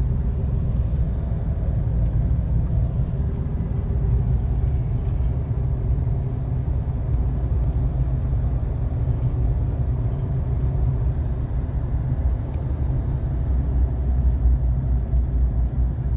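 Steady low rumble of engine and road noise inside the cabin of a moving Mahindra Bolero diesel SUV.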